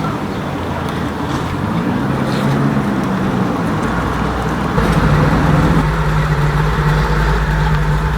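A car engine running close by: a deep, steady rumble that gets louder about five seconds in and then holds.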